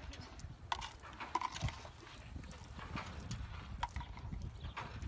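A few soft clicks and scuffs of an animal feeding from sandy ground, over a low steady rumble of wind on the microphone.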